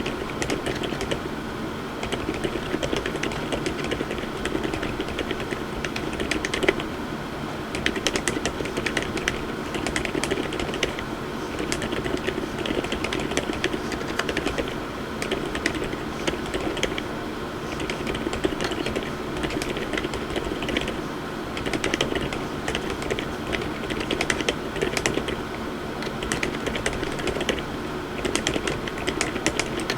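Continuous typing on a MONSGEEK M1W mechanical keyboard with low-noise Outemu Lime switches and Kuromi keycaps: a fast, steady stream of key strokes.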